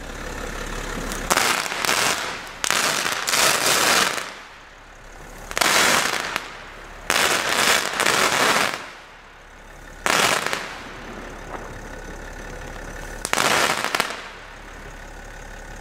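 A chain of 15 Xplode Big Balls crackling balls, 15 g each, going off in about six bursts of dense crackling, each from under a second to about two seconds long. Between the bursts there is a quieter hiss.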